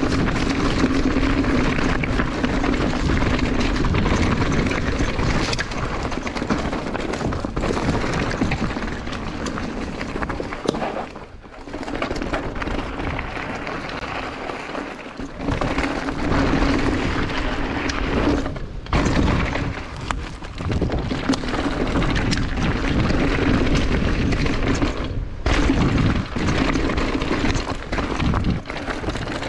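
Mountain bike riding fast down a rocky dirt trail: wind rushing over the camera microphone, with a constant run of knocks and rattles as the tyres hit rocks and roots. The noise drops briefly a few times.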